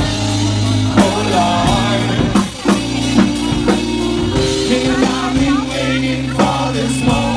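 Loud live rock music in a bar: a man singing into a microphone over a steady bass line and a drum kit.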